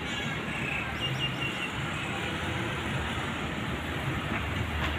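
Steady outdoor street ambience: a constant rush of traffic-like noise, with a few faint high chirps about a second in.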